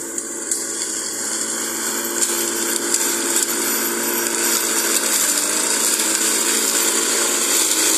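Walk-behind soil-scraping weeder powered by a 7 HP Chinese-made four-stroke petrol engine, running steadily under load as its vertical-shaft rotary blades scrape the ground down to bare soil. The sound grows gradually louder as the machine comes around the tree.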